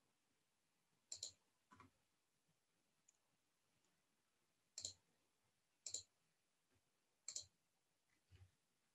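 Faint computer mouse and keyboard clicks: six short, separate clicks, several of them doubled like a button's press and release, with near silence in between.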